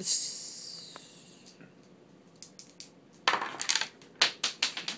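Small hard Monopoly pieces clicking and clattering on the game board: a quick cluster of knocks about three and a half seconds in, then several separate clicks. It opens with a short hissing rush that fades over about a second.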